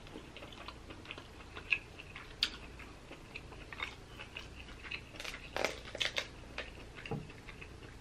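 Faint clicks and crackles of a whole boiled Dungeness crab being handled and its shell and legs pulled apart, with a few louder cracks about five to six seconds in.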